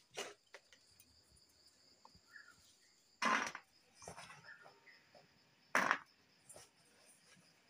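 Crickets trilling steadily in the background. Three short, sharp noises cut across it: one at the very start, the longest about three seconds in, and another near six seconds.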